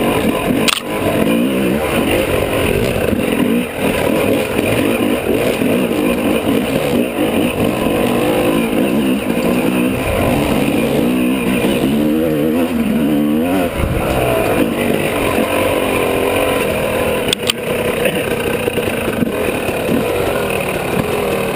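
Dirt bike engine running under load on a rough trail, its pitch rising and falling as the rider works the throttle. A couple of sharp knocks come about a second in and again near the end.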